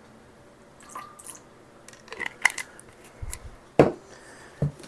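Light clicks and taps as a small vanilla bottle is handled and capped, then a sharp knock about four seconds in and a duller thump just after as things are set down on the kitchen counter.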